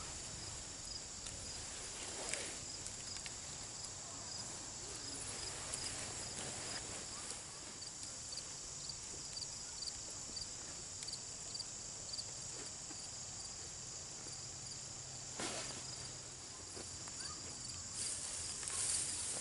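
Field insects chirping steadily: a high-pitched chorus with a regular pulsing chirp. A canvas tarp rustles now and then as it is handled, most clearly about three-quarters of the way through and near the end.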